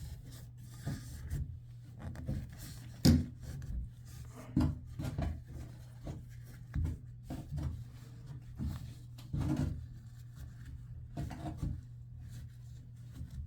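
Irregular rubbing and scraping with a few knocks, the loudest about three seconds in, from working by hand at an open tub faucet valve body while drying it out to trace a small leak.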